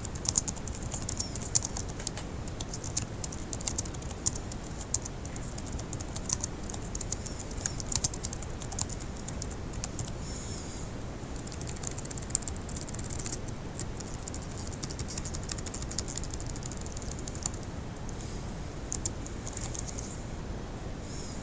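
Fast typing on a laptop keyboard: a dense, continuous stream of key clicks with a couple of brief pauses, one about ten seconds in and one near the end.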